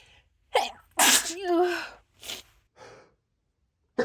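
A person sneezing: a short burst about half a second in, then one loud sneeze about a second in, followed by two shorter, softer sounds.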